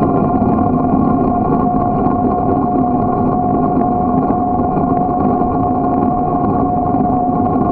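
Steady rumble and rushing noise of a bicycle rolling along pavement, picked up by a camera mounted on the bike, with a steady whine running through it the whole time.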